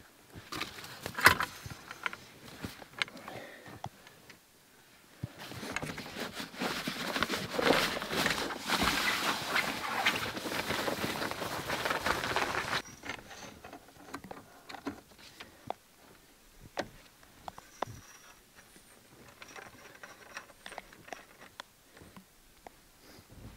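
ARB roll-out vehicle awning being opened: after a few knocks and clicks at its cover, the canvas rustles and scrapes loudly for several seconds as it is pulled out, stopping abruptly. Then scattered light knocks and crunching steps in snow.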